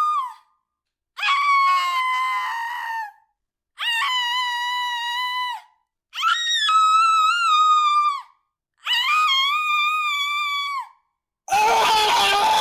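A woman screaming in pain: four long, high-pitched cries of about two seconds each, separated by short silences, after the tail of an earlier one. Near the end a harsher, rougher scream begins.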